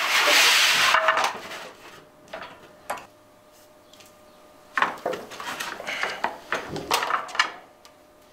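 Thin sheet metal scraping and rattling as it is handled and slid into a hand-operated sheet-metal brake. It is loudest in the first second, followed by a couple of clicks and then a run of metallic clatters.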